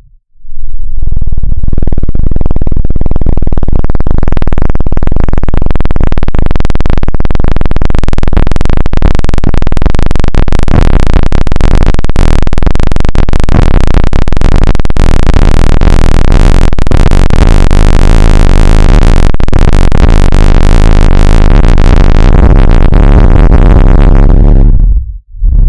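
Very loud, harsh synthesized electronic sound: a dense buzzing wall of noise pinned at full volume, heaviest in the bass and full of crackling clicks. It cuts out for a moment at the start and again near the end, then comes straight back.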